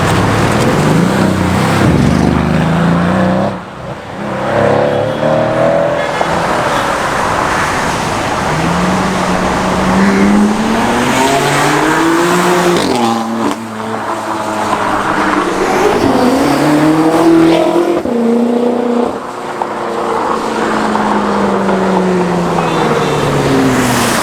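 Mercedes-AMG GT R's twin-turbo V8 engine revving hard, its note climbing and dropping in pitch several times.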